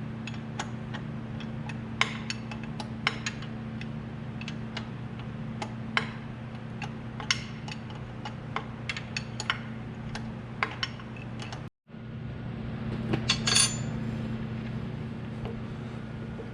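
Hand tools and loose metal lathe parts clinking and clicking as the lathe is taken apart, in scattered sharp taps with a busier cluster of clinks about 13 seconds in. A steady low hum runs underneath.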